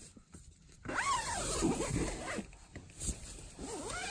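Tent door zipper being pulled: one long zip starting about a second in, then a shorter one near the end.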